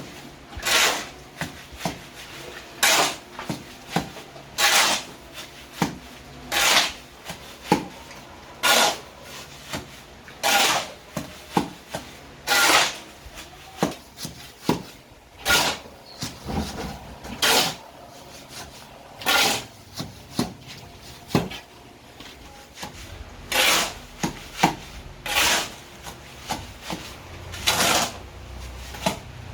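A hand tool rasping against a hard surface in steady back-and-forth strokes, about one a second, every other stroke louder.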